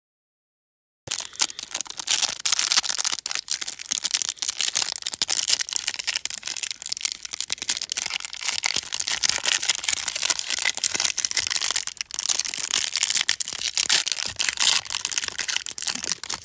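Clear plastic wrapper on a stack of basketball trading cards crinkling and tearing as it is pulled open by hand. The dense crackle starts about a second in.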